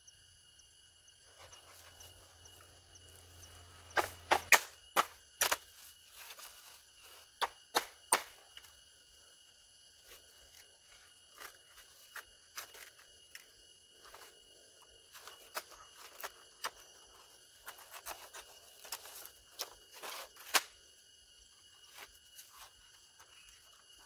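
Steady high-pitched drone of forest insects, with scattered sharp clicks and knocks in clusters, the loudest about four to five seconds in and again near eight seconds.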